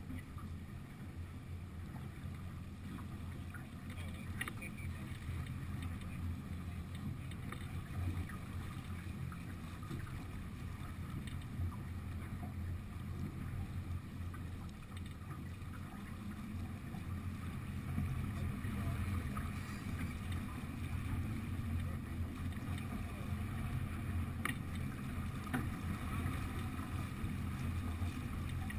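Steady low rush of wind and water around a sailing yacht under way, with a few faint clicks and knocks from the boat.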